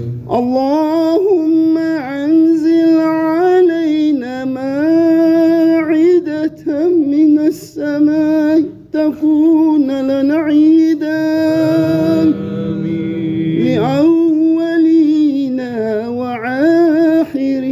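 A solo voice chanting a devotional melody, holding long notes with ornamented, wavering turns and breaking off for short breaths.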